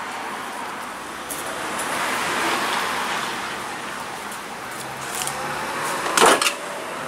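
Steady road-traffic noise that swells and fades over a few seconds, with a short loud clatter about six seconds in.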